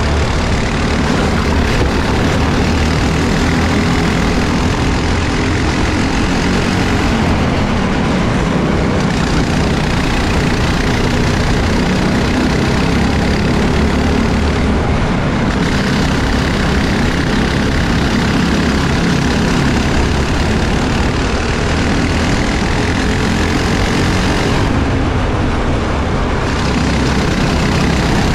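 Briggs & Stratton four-stroke single-cylinder racing kart engines at full race pace, heard onboard. The engine note rises and falls through the corners, and the engines of other karts run close by.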